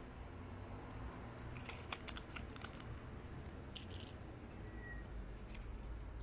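Faint crinkling and light clicks of paper truffle cases as chocolate truffles are set into them, mostly between about one and a half and four seconds in, over a low steady background rumble.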